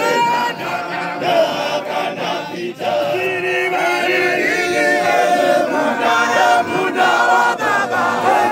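A crowd of men singing a church chorus together, many voices overlapping, with no instruments.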